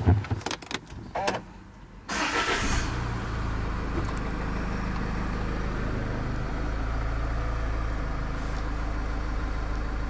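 Range Rover Evoque engine starting about two seconds in after a few clicks and knocks, then idling steadily.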